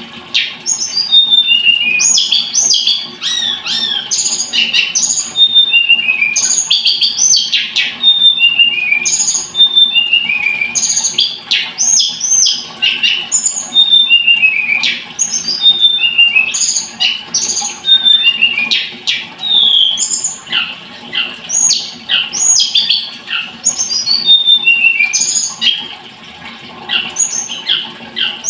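Tledekan gunung singing a fast, varied song of sharp chirps and short downward-slurred whistles, with only a brief pause near the end.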